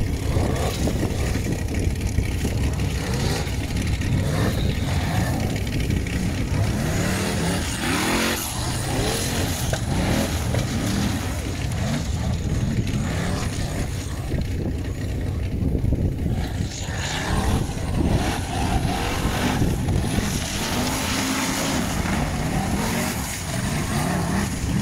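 Formula offroad (torfæra) car's engine revving hard during a run, its pitch sweeping up and falling again and again.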